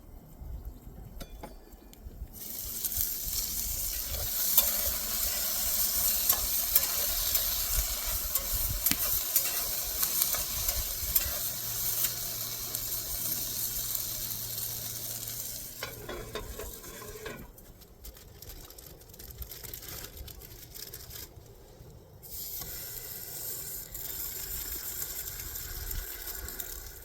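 Hamburger meat sizzling and frying in a small cast iron pan on a butane camp stove. The sizzle starts a couple of seconds in, drops away for a few seconds past the middle and comes back near the end.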